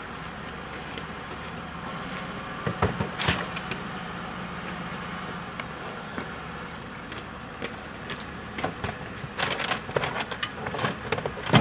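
Knocks and bumps of gear being set into a police car's trunk, a few about three seconds in and a denser run near the end, over a low steady engine hum. The loudest hit comes at the very end: the trunk lid slamming shut.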